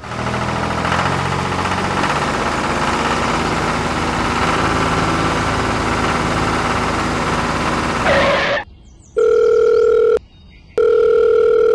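Small tractor engine running steadily for about eight seconds. It then stops, and two steady electronic telephone tones follow, each about a second long with a short gap between.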